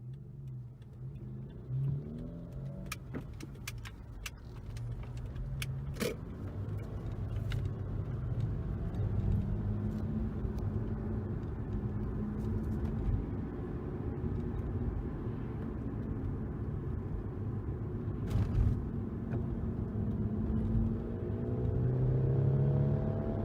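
BMW E92 320i's four-cylinder engine running through a custom dual-muffler exhaust, with a low, steady note. A few sharp clicks come early, and the engine note rises near the end as it is revved or accelerates.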